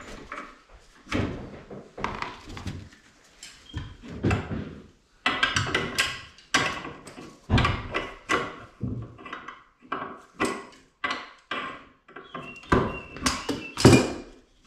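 Repeated knocks, clunks and scrapes of a ceramic toilet being dismantled, hands and tools working at the cistern and pan. The knocks come thick and fast through the middle, with the loudest one near the end.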